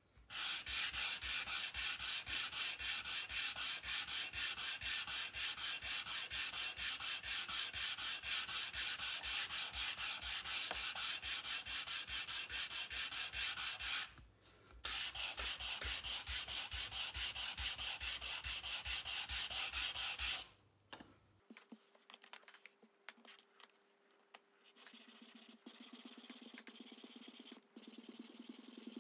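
A small hand sanding block faced with 150-grit sandpaper rubbing back and forth along a thin wooden model wheel spoke in quick, even strokes. There is a short pause about halfway through, the sanding stops about two-thirds of the way in, and it resumes more faintly near the end.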